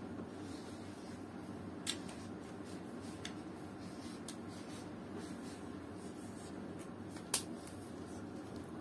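Quiet handling sounds of writing with a marker pen and rustling paper sheets over a steady low room hum, with two sharp clicks, one about two seconds in and a louder one about seven seconds in.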